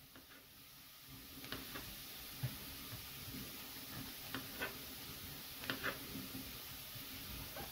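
Kitchen knife slicing button mushrooms on a plastic cutting board: faint, irregular taps of the blade meeting the board, now and then two in quick succession.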